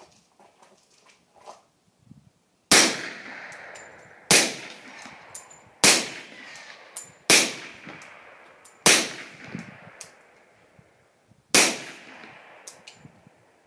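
Six suppressed shots from an ATI FX45-K 1911 .45 ACP pistol, fired at an uneven pace with a longer pause before the last. Each shot is a sharp report with a trailing echo. The ammunition is a load marketed as subsonic.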